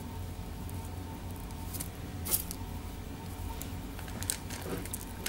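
Pretzel sticks and baking paper being handled: a few light clicks and rustles as the sticks are set down and pressed into a soft marzipan ball, the clearest click about two seconds in, over a steady low room hum.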